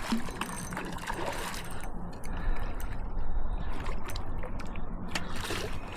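A hooked bass splashing and thrashing at the water's surface as it is reeled in close to the bank, in short irregular splashes.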